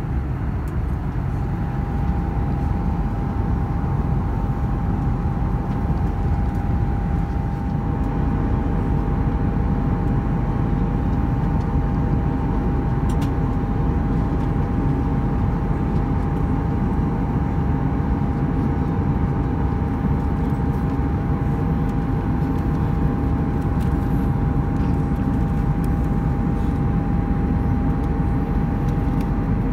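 Airbus A320 cabin noise in cruise flight: a steady low rush of engines and airflow. A thin steady tone sits above it, coming in about a second in.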